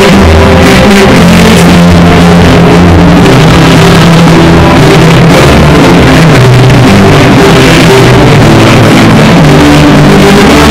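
Loud instrumental background music with long held low notes that change every second or so.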